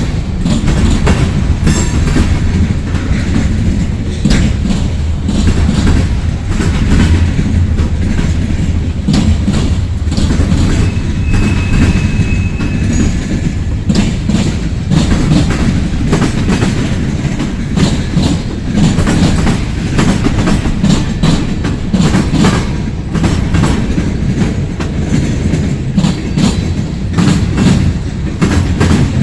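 Freight cars of a long freight train rolling past at speed: a steady low rumble with wheels clicking over rail joints, and a brief faint high squeal about halfway through.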